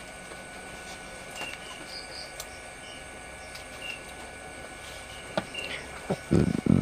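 Handling noise from a plastic power bank being turned over in the hands, ending in a cluster of loud low bumps near the end. Faint short high chirps repeat about once a second in the background.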